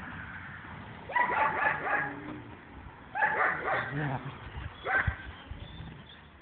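Ten-month-old female dog vocalizing in three short bursts: about a second in, around three seconds in, and a brief one near five seconds.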